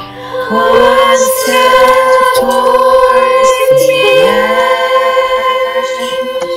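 A school chorus of young voices comes in about half a second in, singing a slow melody in long held notes.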